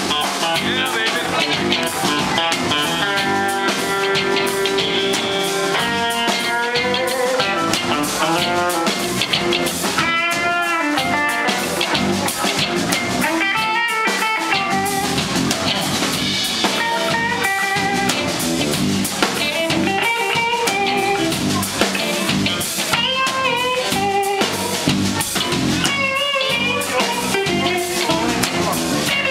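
Live blues band playing: an electric guitar takes the lead with bent notes over bass guitar and a drum kit.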